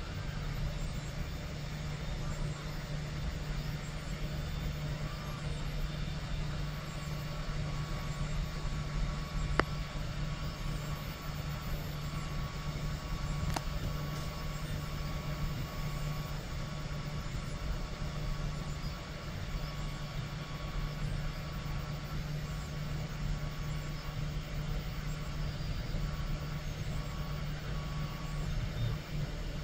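Home-built 3D printer at work on a fine-layer print, its stepper motors and cooling fan humming steadily. A faint high whine comes and goes, and there are two sharp ticks partway through.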